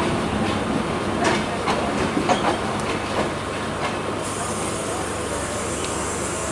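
Passenger train coaches rolling round a curve, heard from aboard: the wheels clatter over rail joints in sharp clicks that thin out after about three seconds. A steady high hiss comes in about four seconds in.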